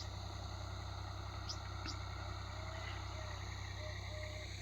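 Faint outdoor ambience of steady insect chirring, with a few short bird chirps, over a low steady hum.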